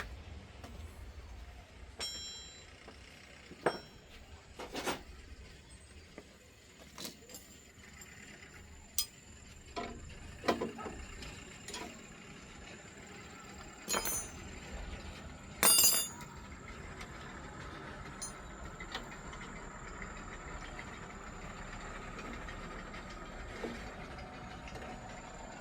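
Scattered metallic clinks and knocks, as of tools and metal parts being handled during machine repair work, the loudest pair about two-thirds of the way through, over a steady background noise that thickens in the second half.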